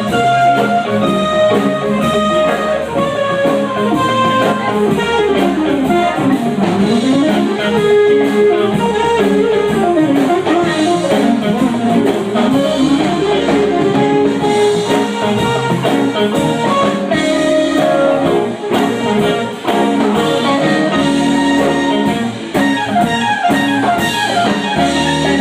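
Live blues-rock band playing an instrumental break without vocals: a lead instrument runs quick up-and-down melodic lines over drums and bass.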